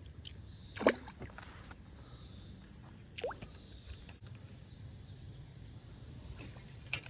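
Steady high-pitched chorus of insects in the creekside vegetation. A short, louder sound breaks in about a second in, and a few faint clicks follow later.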